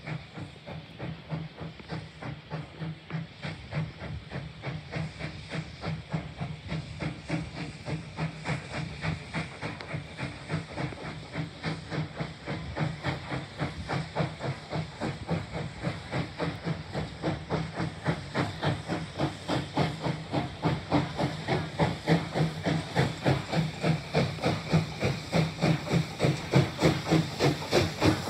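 Steam locomotive No. 2023 working a train, its exhaust chuffing steadily about two to three times a second and growing louder as it approaches.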